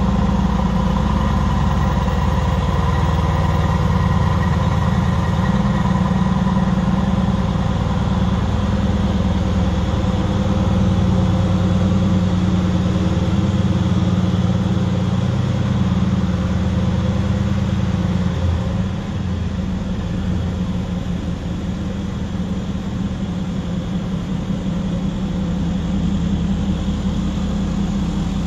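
Mercedes-AMG GT's twin-turbo V8 idling steadily, a low even drone; it becomes a little quieter about two-thirds of the way through.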